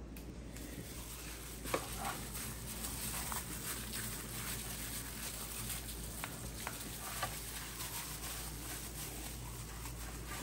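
Gloved hands working wet spice paste into a whole raw fish on a plastic tray: soft squelches and crinkles of the plastic gloves, with a sharper tap a little under two seconds in, over a steady low hum.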